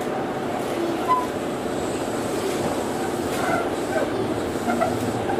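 Sotetsu old 7000 series electric train running, heard inside motor car MoHa 7108 with its Hitachi GTO-VVVF inverter: a steady rumble of wheels and motors as the train gathers speed after a station stop, with a faint high whine.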